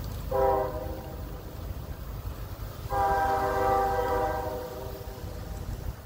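Diesel locomotive air horn sounding a chord of several tones: a short blast, then a longer one, as the train nears a road grade crossing, over a steady low rumble.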